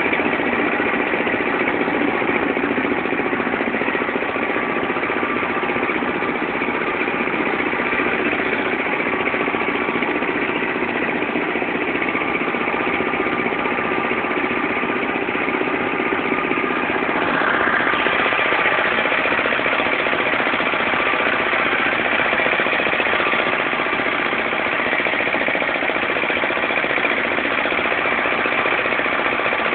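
Agrale 4100 compact tractor's single-cylinder diesel engine running steadily and loudly, growing a little louder just past the middle.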